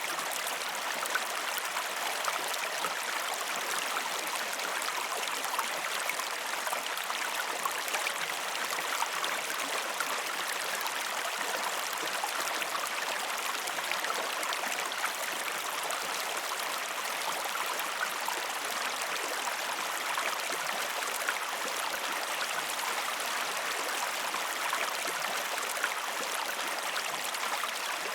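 River water flowing steadily over rocks, a continuous rushing with small splashes and gurgles through it.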